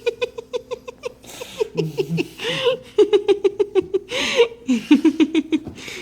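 A cat chattering: fast runs of short, high chirping calls, about eight a second, broken by a couple of longer breathy cries.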